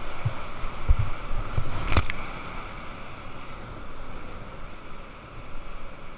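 Whitewater rapids rushing around a kayak, heard close up on an action camera, with low buffeting thumps on the microphone in the first couple of seconds and a single sharp knock about two seconds in.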